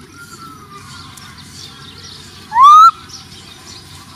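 Baby macaque calling: a faint, drawn-out, slightly falling coo near the start, then one loud, short rising coo about two and a half seconds in.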